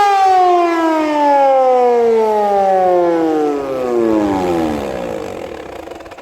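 Hörmann HLS 373 high-power siren winding down once it is switched off at the end of its steady all-clear tone. Its pitch falls continuously as the rotor slows, and the sound fades out about six seconds in.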